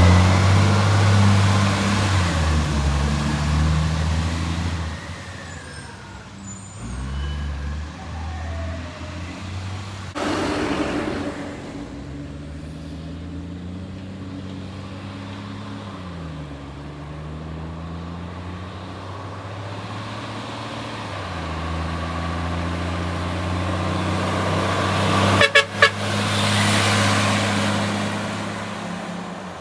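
Garbage truck's diesel engine running with the blatty exhaust note of an exhaust leak, its pitch rising and falling as the revs change; loudest at the start. A burst of hiss comes about ten seconds in, and two short, sharp sounds come near the end.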